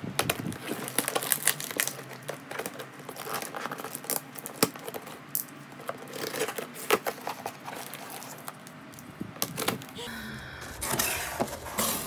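Utility knife slicing through packing tape and cardboard on a shipping box, a run of short scratching cuts and clicks. Near the end the cardboard flaps are pulled open with a louder rustle.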